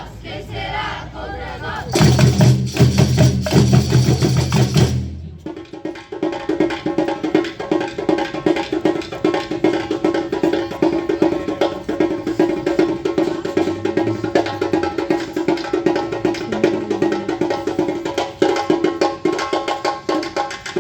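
A band playing music with busy percussion. A loud, bass-heavy passage about two seconds in gives way after a few seconds to held chords over rapid percussion.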